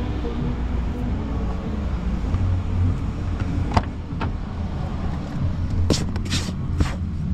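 Steady low rumble of a car, with a few sharp clicks and knocks about four seconds in and again near the end.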